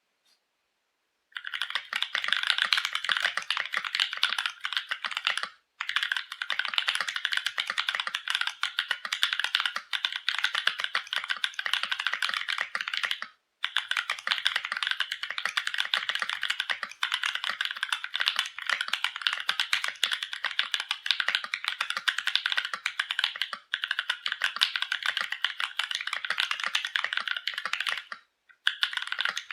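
Continuous typing on a Novelkeys NK65 Watermelon mechanical keyboard with an aluminum plate and plate foam, fitted with Durock Koala tactile switches lubed with Krytox 205g0 and dye-sub keycaps. The typing starts about a second and a half in, with short pauses about 6, 13 and 28 seconds in.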